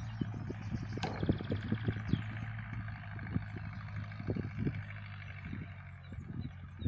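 Engine of a homemade tractor, a 3.6-litre 85 hp unit, running steadily under load as it mows grass, with frequent irregular low thumps on top.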